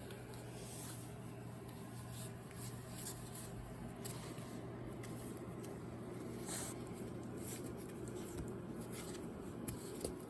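Soft, irregular rustling and scratching as a Shiba Inu puppy wriggles and fidgets, over a steady low hum.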